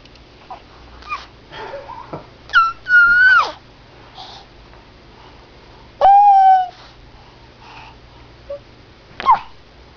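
A small child's high-pitched squeals: a short one and then a longer squeal that slides down in pitch about three seconds in, a long steady hoot-like squeal about six seconds in, and a short squeak near the end.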